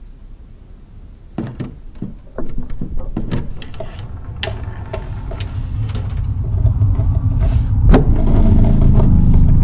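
A run of sharp knocks and rattles from an old wooden chest as its lid starts to lift, starting about a second and a half in, under a low rumble that swells steadily until it is loud near the end.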